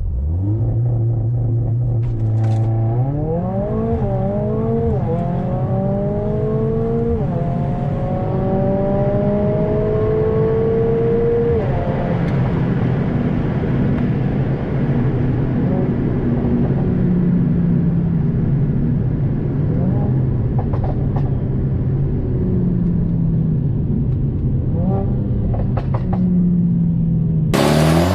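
Mercedes-AMG A45 S W177's turbocharged 2.0-litre four-cylinder through an Armytrix valvetronic exhaust: steady at first, then accelerating hard through about four upshifts, the note rising and dropping back at each shift. It then holds a steadier high-speed run with small rises and falls and a few brief cracks, and near the end cuts to a louder, rising rev.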